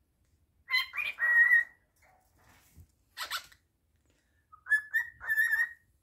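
Cockatiel whistling in short phrases: a run of clear notes about a second in and another near the end, with a brief harsh call between them.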